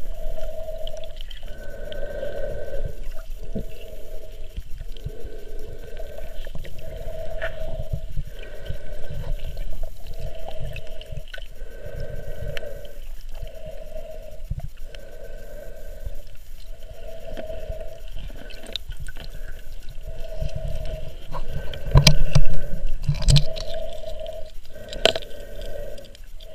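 Underwater sound picked up by a submerged camera: a hum that swells and fades every one to two seconds, with scattered low knocks and a loud thud about 22 seconds in.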